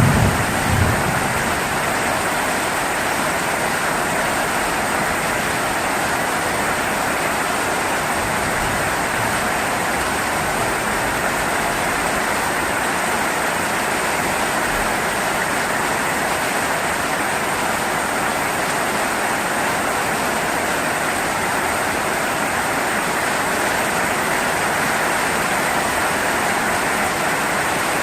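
Steady heavy rain, an even hiss throughout, with the tail of a low thunder rumble fading out in the first second.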